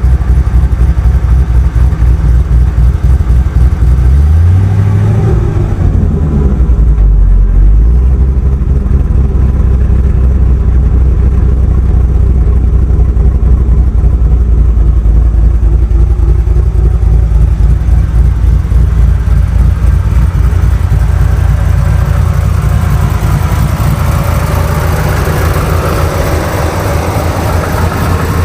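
Ford Mustang GT's 4.6-litre V8 idling, with a rattle. About four seconds in, a short throttle blip rises and falls in pitch, and over the last few seconds the sound grows brighter.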